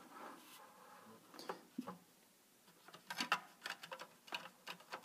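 Faint clicks and taps of a plastic model car being handled as its hood is lowered shut: a couple of soft taps, then a quick run of small clicks in the second half.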